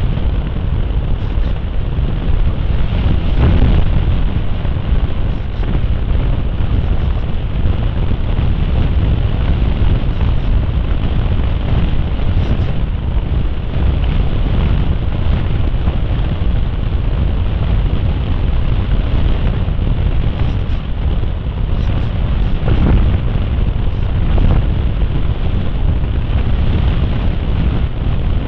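Loud, steady wind rush on the onboard camera's microphone of a TW-747 model Cessna in flight, mostly low rumble, with small swells a few seconds in and again a little past the middle.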